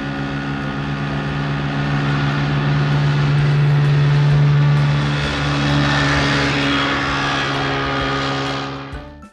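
Hovercraft sound effect: a steady engine-and-propeller drone that swells slightly midway, fades near the end and then stops.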